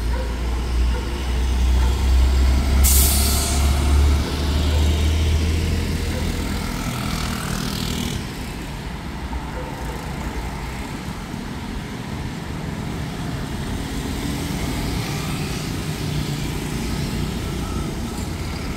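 Road traffic at a busy city intersection: a heavy vehicle's deep engine rumble for the first few seconds, with a short, sharp hiss about three seconds in, then the steady noise of cars passing.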